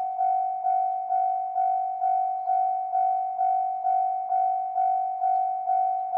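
Japanese railway level crossing alarm ringing its warning bell, an even 'kan-kan' of about two strokes a second, each stroke fading before the next: the crossing is closed for an approaching train.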